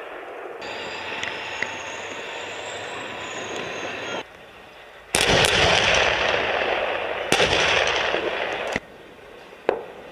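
Artillery firing on a range: stretches of dense crackling noise and rumble with sharp bangs about five, seven and nine-and-a-half seconds in, the sound cutting abruptly between shots several times.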